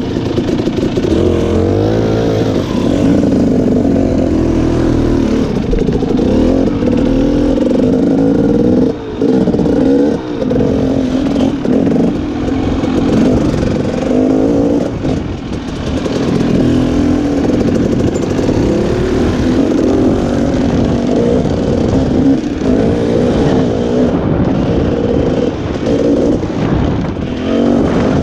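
Husqvarna enduro dirt bike engine revving up and down with the throttle on a forest trail, briefly easing off twice, with a second dirt bike running just ahead.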